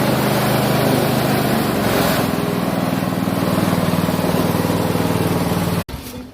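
Coconut husk stripping machine running with a steady motor drone, which changes slightly in pitch about two seconds in. The drone cuts off abruptly near the end.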